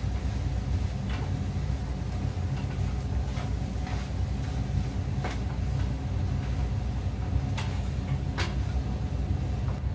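A spatula stirring food in a frying pan, knocking against the pan in a handful of sharp clicks, over a steady low rumble.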